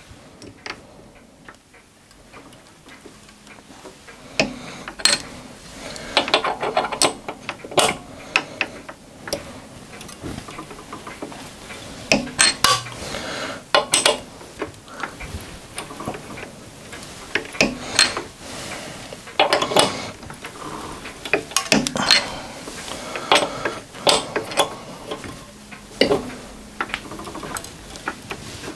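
Die cutting a thread on a steel bar, the lathe headstock turned by hand against the die in its tailstock holder: repeated metallic clicks and scraping with each part-turn, about one or two a second, starting a few seconds in.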